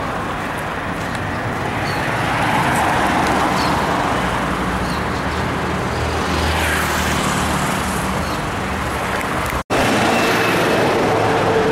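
Street traffic with a Jaguar S-Type V6 sedan driving past and away, its engine and tyres heard over the road noise, loudest about six to seven seconds in. The sound drops out for an instant near ten seconds, then traffic noise goes on with a steady hum.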